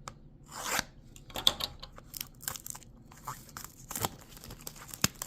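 Product packaging being opened by hand: irregular rustling, tearing and crinkling, broken by a few sharp clicks and taps.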